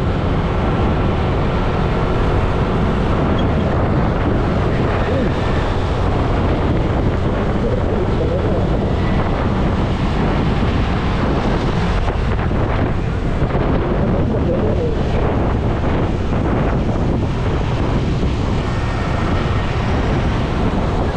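Wind rushing over the microphone of a moving motorcycle, with the bike's engine and passing road traffic underneath.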